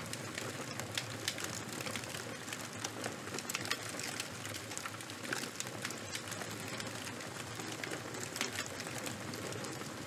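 Fire-crackling sound effect: a steady hiss full of small irregular pops and crackles.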